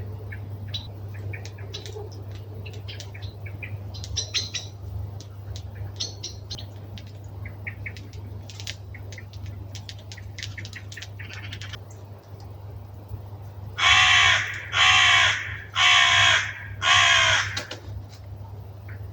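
Birds settling into a winter roost: scattered short chips and calls from small birds, then four loud, harsh, crow-like caws about a second apart near the end.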